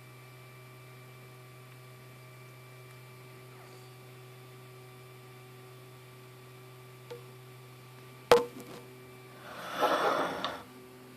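Steady low electrical hum, with a single sharp click about eight seconds in and a noisy rustle lasting about a second near the end.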